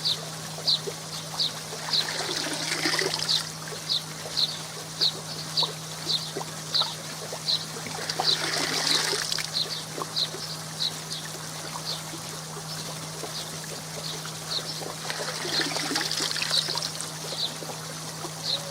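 Koi pond water trickling and splashing over a steady low pump hum, with three broader swells of water noise. A short high chirp repeats evenly, about two to three times a second, throughout.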